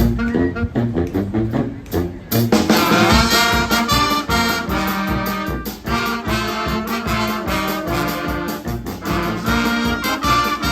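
A pep band playing loudly, brass (trombones and trumpets) carrying the tune over a steady drum beat. The music jumps abruptly to a different passage about two seconds in.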